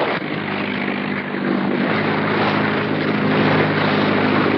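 Motorboat engine running with a steady drone over a constant rush of wind and rough water.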